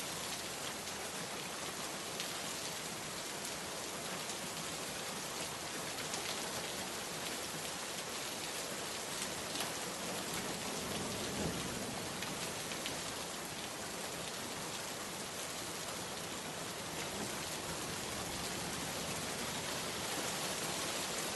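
Steady rain falling, a dense even patter of drops, with a brief low swell about halfway through.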